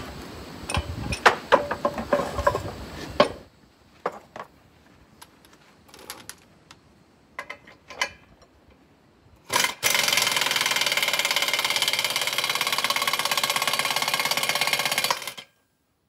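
Pneumatic air hammer running in a fast, steady rattle for about five seconds near the end, hammering on a driveshaft U-joint to drive it out of its yoke; it stops abruptly. Before it come a few sharp metal clanks and clicks from tools being handled.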